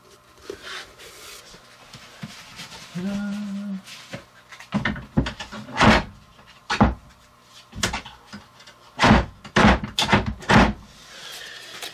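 A brief hummed note about three seconds in, then a dozen or so irregular knocks and thumps over about six seconds.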